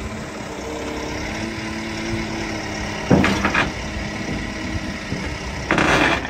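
Manitou telehandler's engine running while its hydraulic quick hitch picks up a steel bucket off a trailer, with a loud clank about three seconds in and a further rattle of clanks near the end as the hitch and bucket knock together.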